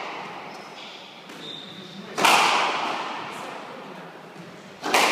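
Squash ball struck hard during a rally: two sharp cracks about two and a half seconds apart, each ringing on in the court's echo.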